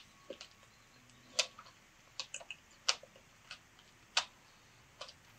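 Close-miked chewing of a soft fruit milk pudding: a string of sharp, wet mouth clicks and smacks, about eight of them at irregular intervals.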